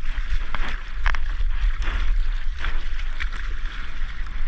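Ocean water lapping and slapping close to the microphone, with several small splashes, over a steady low rumble of wind buffeting the microphone.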